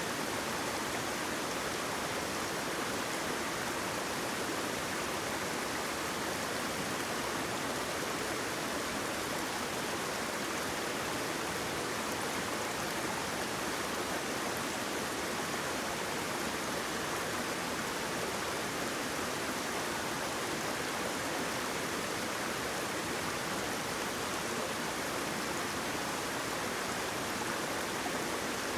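Flowing water from a stream or small waterfall: a steady, even rush.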